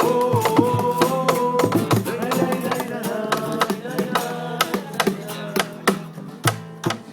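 Acoustic guitar strummed in a rumba-flamenco style with sharp percussive strokes, under a voice holding one long sung note at the start. The playing thins out and quietens near the end as the song winds down.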